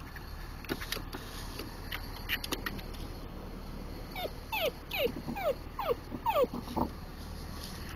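Dachshund whimpering: a run of about seven short whines, each falling in pitch, in the second half, with a few fainter short sounds before.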